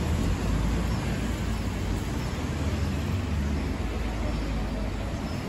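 Steady low rumble of street traffic outdoors.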